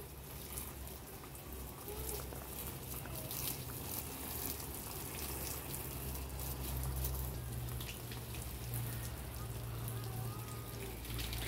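Water spraying steadily from a hand-held hose over potted orchids, falling on their leaves and pots, with a low rumble underneath.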